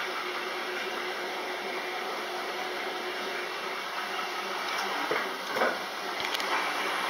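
Laundry machines running with a steady whirring rush and a faint held hum, with a couple of brief bumps about five seconds in.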